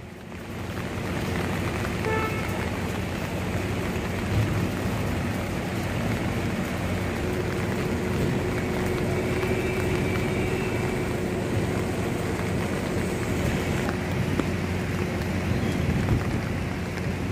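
Steady street noise of vehicles moving through heavy rain on a waterlogged road, with wind on the microphone and a short tone, like a horn, about two seconds in.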